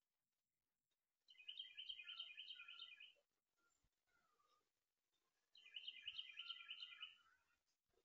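A songbird sings two faint bursts of rapid, repeated notes, each lasting about two seconds, the second coming a few seconds after the first.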